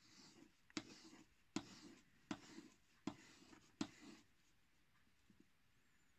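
Crivit folding pocket knife blade drawn along a strop loaded with green chromium oxide compound: six faint scraping strokes, evenly spaced a little under a second apart, stopping about four seconds in.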